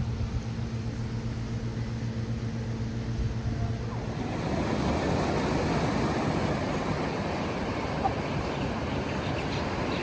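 A steady low hum for about four seconds, then a broad rushing noise of beach wind and surf takes over.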